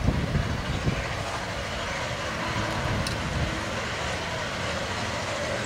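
Chinese QJ-class 2-10-2 steam locomotive approaching under power, heard as a steady rush of exhaust and running noise. Wind gusts rumble on the microphone in the first second.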